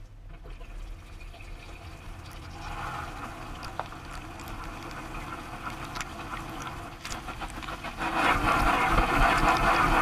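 Dishwasher washing, heard from inside the tub: a low pump hum under water spraying against the dishes, racks and steel walls. The spray builds, growing much louder and denser about eight seconds in.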